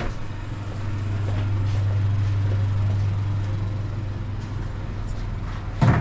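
Motor vehicle engine running with a steady low drone that swells slightly after about a second, then a sharp knock near the end.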